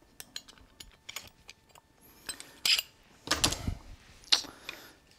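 Small metal bicycle tools and parts being handled: a string of light clicks and clinks, with a few louder clanks about three to four and a half seconds in.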